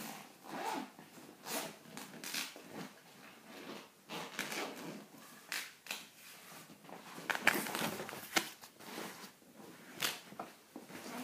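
Cricket kit bag being handled: a zip pulled and fabric and gear rustling, with irregular scrapes and knocks, the loudest a little past halfway through.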